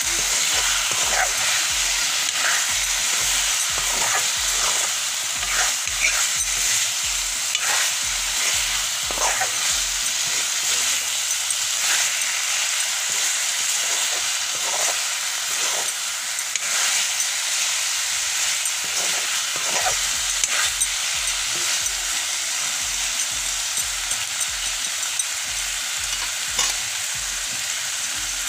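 Chicken and banana flower sizzling in a black iron kadai while a spatula stirs the mix, scraping against the pan in repeated strokes over a steady frying hiss.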